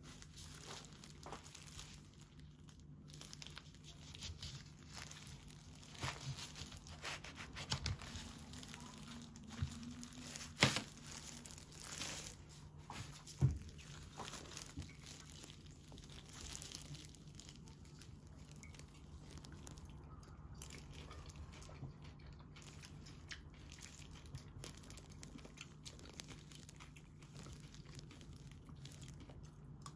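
Quiet food-prep handling sounds: thin plastic gloves crinkling and a knife cutting through a dragon fruit on a cutting board, with scattered small clicks and taps, the sharpest two about halfway through. Near the end a metal spoon scoops the soft white flesh. A faint steady low hum runs underneath.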